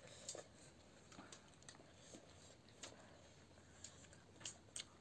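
Near silence with faint, scattered small clicks and smacks of eating: people chewing and picking food from plates with their fingers.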